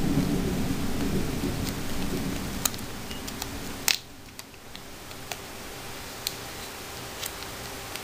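Low rumbling handling noise that drops away suddenly with a sharp click about four seconds in, then a few scattered light clicks, as small eyeshadow containers are handled and swatched close to the microphone.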